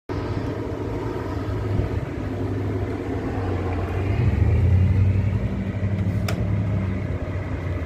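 Steady low rumble of a running vehicle engine with a droning hum, growing a little louder about halfway through. A single faint click about six seconds in.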